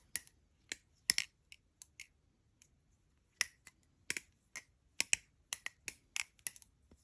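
Balisong (butterfly knife) being flipped: sharp, irregular metal clicks as the handles swing round and strike, with a pause about two seconds in. The knife has worked loose, and its owner says it sounds terrible.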